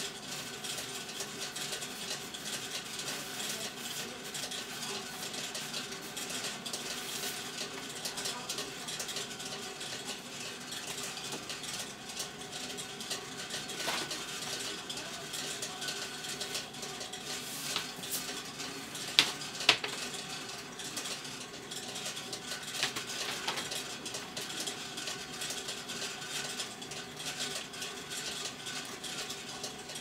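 Korean rice popping machine (ppongtwigi) running steadily, its motor turning the sealed grain drum with a light rattle. Two sharp clacks about half a second apart come a little past halfway.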